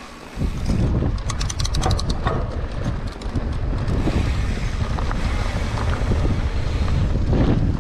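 Wind buffeting the microphone of a camera riding on a mountain bike, over the rumble of the tyres rolling on a dirt trail. A quick run of rapid clicking comes in about a second in.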